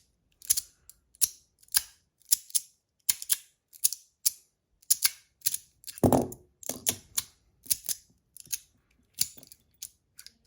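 Magnetic Panda slider fidget being slid back and forth, snapping from position to position in a string of sharp clicks, often in pairs, one or two a second, with a duller knock about six seconds in.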